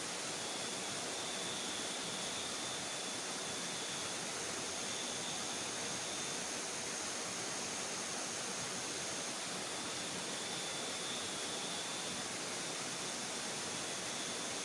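Steady rushing of a river, with faint thin high tones coming and going above it.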